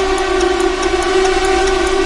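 Countdown timer sound effect: a steady, held electronic drone of several tones with faint, quick, regular ticking, running up to the bomb's detonation.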